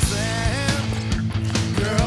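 Rock music with drums, steady bass and a melody line that slides up and down.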